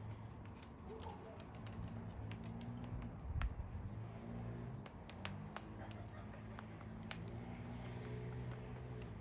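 Parrots cracking and crunching seeds in their beaks, giving many sharp irregular clicks and snaps over a low steady hum.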